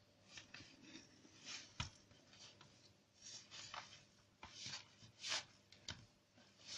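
Faint, irregular soft squishing and rubbing as hands knead sticky bread dough in a plastic bowl, working the remaining dry flour in. The strongest strokes come around the middle and a little past it.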